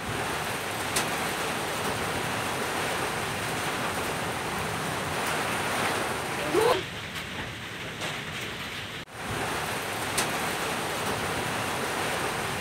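Steady hiss of heavy rain. About six and a half seconds in there is a brief rising sound, and the audio cuts out for an instant near nine seconds.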